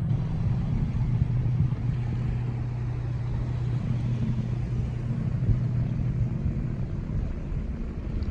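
Steady low drone of an engine, fading about seven seconds in, over wind rumbling on the microphone.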